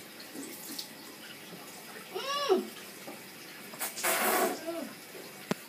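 A boy's short pitched vocal groan about two seconds in, then a brief rush of running water from a tap, and a sharp click near the end.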